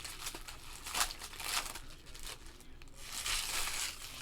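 Plastic packaging crinkling and tearing in several short rustling bursts as a box of baseball cards is unwrapped.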